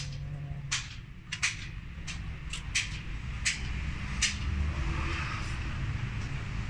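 Sharp metal clicks and clinks, about seven in the first four and a half seconds, from parts of an inline diesel injection pump being handled during plunger installation, over a steady low hum.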